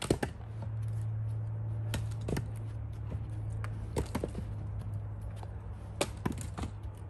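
Split firewood pieces tossed onto a woodpile, landing with sharp wooden clunks about every one to two seconds, over a steady low hum.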